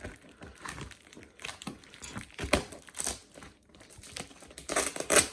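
Parcel wrapping being pulled and torn open: irregular crinkling, rustling and ripping with scattered sharp clicks, loudest near the end.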